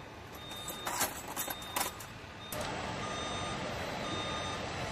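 Electronic warning beeps repeating about once a second, with a few metal clinks of hand tools from the tool kit in the first two seconds. A steadier background noise gets louder about halfway in.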